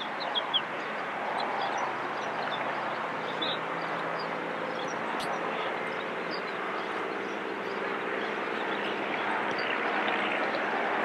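A steady engine drone: a faint low hum under a broad rushing noise, slowly growing louder toward the end.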